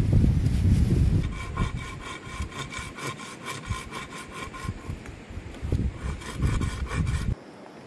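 Wind buffeting the microphone at first, then a blade sawing a wooden pole in quick back-and-forth strokes, each with a slight ringing tone. The strokes come in two runs with a short pause between and cut off suddenly near the end.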